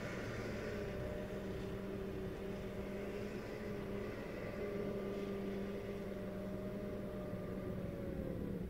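Steady mechanical hum of a vehicle's motor heard inside the cabin, dipping slightly in pitch and cutting off near the end.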